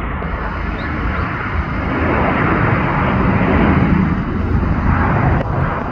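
Jet airliner passing close by, its engine noise swelling to a peak about three to five seconds in and then easing.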